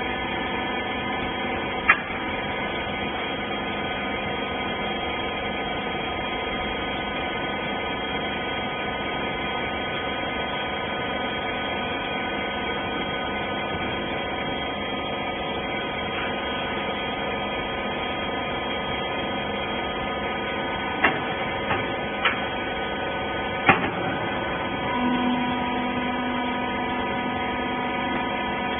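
A wiper-type clothes baler's hydraulic power unit running with a steady hum. A few sharp clicks sound about two seconds in and again around three-quarters of the way through, and a further steady tone joins near the end.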